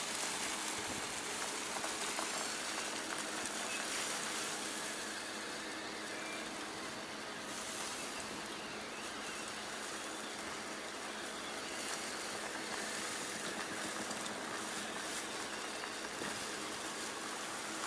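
Wood chips pouring off the back of a chain-conveyor chip trailer onto a pile in a steady, continuous rushing hiss. A faint, even machine hum from the trailer's hydraulic chain-conveyor drive runs underneath.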